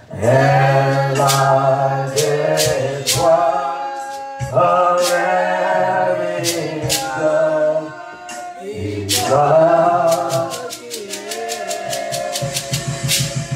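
Congregation singing a slow gospel hymn without band, led by a man's voice on a microphone, with a shaker rattling in time. Near the end the shaking comes faster and a steady low instrumental beat comes in.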